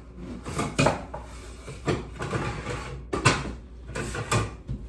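Kitchen clatter: several sharp knocks, about one a second, of dishes and containers being handled and set down on a counter.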